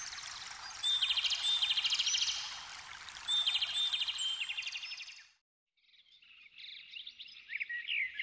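Birds singing repeated trilling phrases over a steady rush of running water. The sound cuts off abruptly about five seconds in, and after a brief gap a second burst of rapid, sweeping bird chirps begins.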